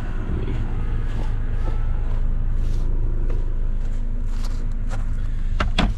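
Steady low rumble of strong wind buffeting the microphone, with a few sharp clicks or knocks shortly before the end.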